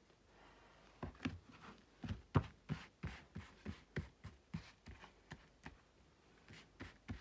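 Oracle cards being shuffled by hand: a run of short card slaps, about three a second, starting about a second in.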